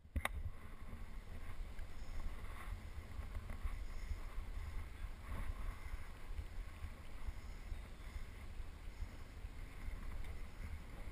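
Wind buffeting the microphone of a body-worn action camera, a steady, uneven low rumble, with a sharp click just after the start.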